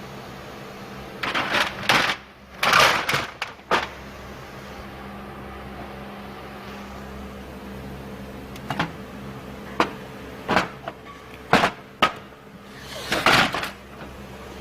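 Clatter of tools and parts being handled during engine repair work: a string of irregular sharp knocks and scrapes, loudest in two clusters near the start and near the end, over a steady hum.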